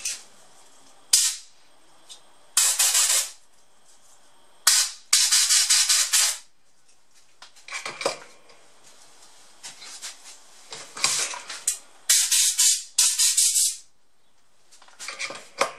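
Compressed air blowing dust out of a laptop's blower-type cooling fan in a series of short hissing blasts, the longest about a second, with pauses between.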